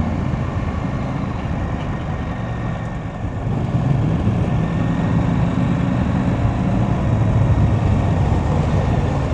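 KTM 890 Adventure R's parallel-twin engine running as the motorcycle is ridden along a gravel road, growing louder about three and a half seconds in.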